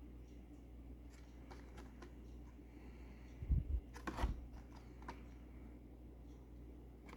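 Faint handling of carded die-cast toy cars: light rustles and small clicks of cardboard and plastic blister packaging, with a low bump about three and a half seconds in and a short, sharper rustle just after.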